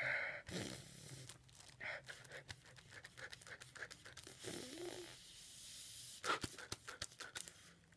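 Thin plastic bag crinkling and rustling close to the microphone, with irregular crackles and clicks of handling noise and some breathing.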